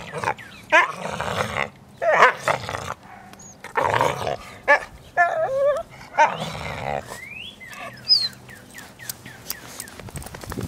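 Two dogs scuffling as an adult dog corrects a jumping puppy by nipping at its paws: about five short bursts of growling and snarling, with high, upward-gliding yelps among them, in the first seven seconds, then only scattered light clicks.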